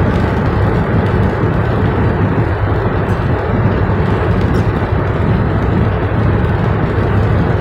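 Steady road noise heard inside the cab of a Dodge Ram pickup cruising at about 55 mph on a highway: a constant low rumble of engine and tyres with wind, holding even throughout.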